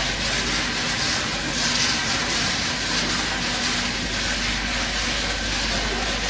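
Steady foundry machinery noise: an even, unbroken din with a low hum underneath and no distinct knocks or impacts.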